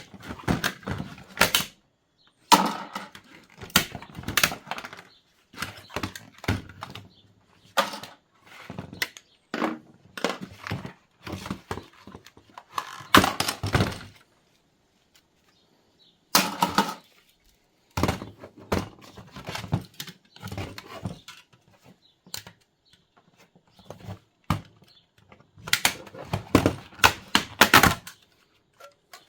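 Plastic and metal parts of a Dell Wyse thin client being handled and pried apart by hand: irregular clusters of clicks, knocks and clatter, with short pauses between.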